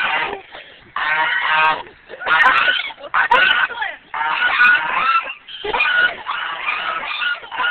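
A flock of domestic geese honking repeatedly. The calls follow one another, several of them overlapping, with only brief pauses between runs.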